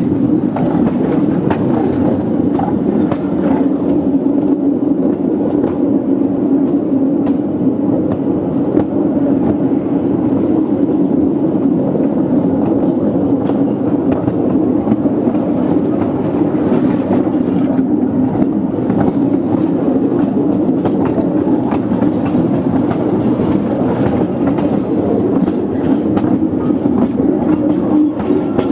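Narrow-gauge field-railway train running steadily along the track: a constant low drone with occasional light clicks from the wheels on the rails.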